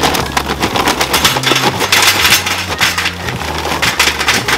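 Charcoal briquettes poured from a paper bag into a metal chimney starter, a continuous clatter of many small hard lumps hitting each other and the metal can.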